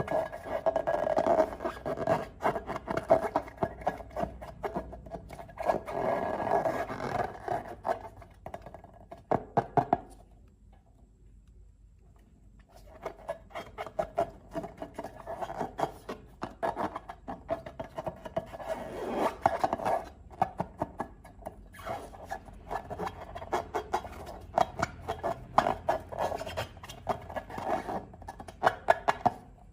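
Hands squishing and stretching slime: dense sticky clicks and rubbing, pausing for about three seconds a third of the way in.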